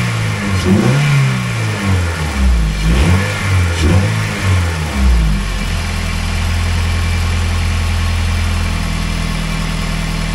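Honda K20A2 2.0-litre four-cylinder engine being revved in several quick throttle blips, its pitch rising and falling each time, then settling to a steady idle about halfway through.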